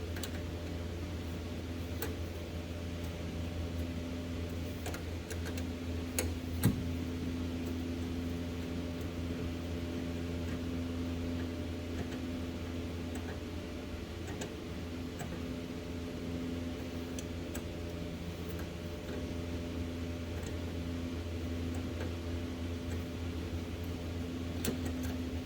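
A steady mechanical hum, with a few scattered light clicks of hand tools on metal as nuts are unscrewed from the starter solenoid's terminals. One sharper click comes about a third of the way in.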